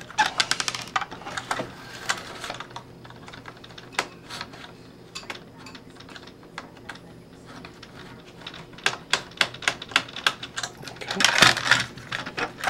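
Light clicking and ticking of a small screwdriver working screws out of the plastic underside of a toy R/C car, with plastic parts knocking as the car is turned and handled. A quick run of clicks comes at the start, and a denser clatter of plastic comes about eleven seconds in.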